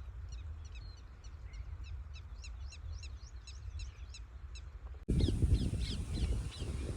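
Small birds chirping in a quick, even series of short, high, falling chirps, about three or four a second, over a low outdoor rumble. About five seconds in the sound cuts abruptly to louder bird calls over a stronger low rumble.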